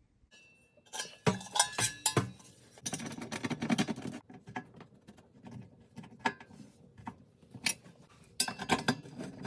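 Sheet-metal fan blade guard of a convection oven being fitted back over the fan inside the oven cavity: irregular metal clinks and rattles, busiest in the first few seconds, with a few more knocks and a short burst of clatter near the end.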